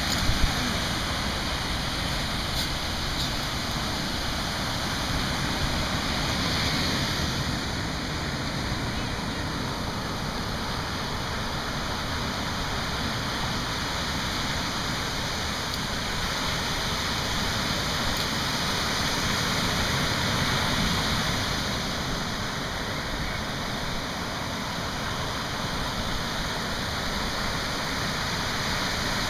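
Steady rush of ocean surf breaking on a sandy beach, swelling and easing slowly.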